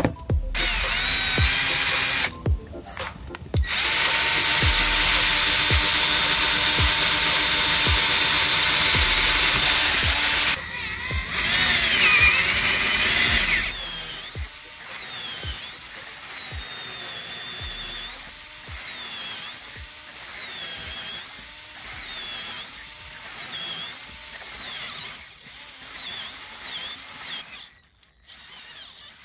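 Drill press with a hole saw cutting round speaker holes in a wooden panel: the motor whine and cutting noise run loud in long stretches with short stops about 2 and 10 seconds in, then go quieter in the second half with the pitch dipping about once a second. Background music with a steady beat plays underneath.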